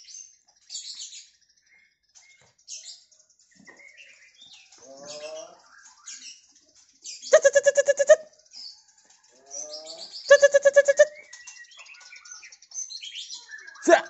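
Caged songbirds chirping and calling, with short high chirps throughout and a few rising calls. Two loud, rapidly pulsing rattle-like calls, each under a second long, come about seven and ten seconds in.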